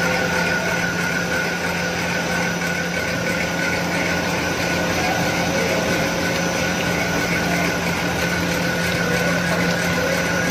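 Slanty snack pellet extruder line running: a steady machine hum with a constant high whine.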